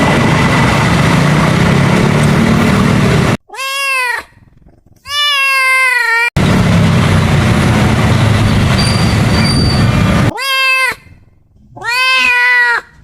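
Four cat meows, each rising then falling in pitch, cut in cleanly between stretches of steady train running noise.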